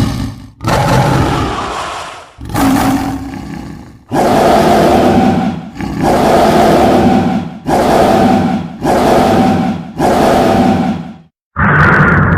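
Designed dinosaur roar sound effects for the Kasai rex, played one after another: about eight loud roars, each one to one and a half seconds long. A brief silence comes near the end, before a higher-pitched roar.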